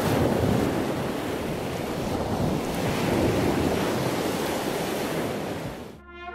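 Surf washing onto a sandy beach with wind buffeting the microphone, a steady rush that swells and eases. It cuts off suddenly near the end as brass music comes in.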